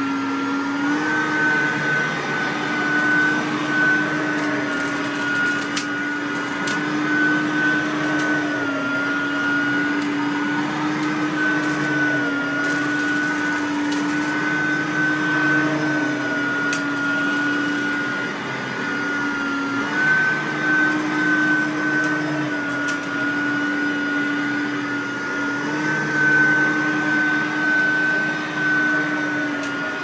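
Riccar R10S SupraLite upright vacuum cleaner running over carpet, a steady motor whine whose pitch shifts slightly up and down every few seconds.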